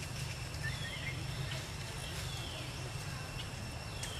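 Outdoor ambience with a steady low rumble and a faint steady high whine. Three short descending whistled bird calls come about a second and a half apart, with a few faint ticks between them.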